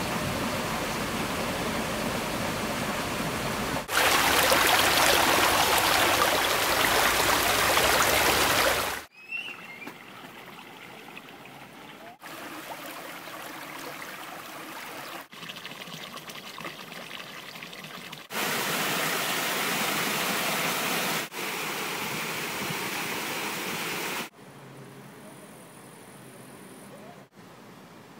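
Steady rushing of running water that jumps in level abruptly every few seconds: loudest for the first nine seconds, then quieter. A brief high chirp about nine and a half seconds in.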